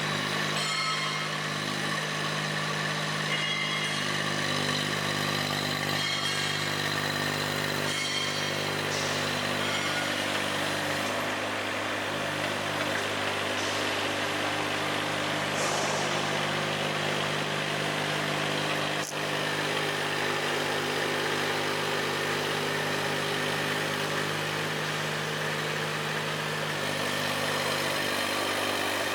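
Small Yanmar diesel engine of a 1.2-ton mini crawler excavator running steadily, with a brief click about 19 seconds in.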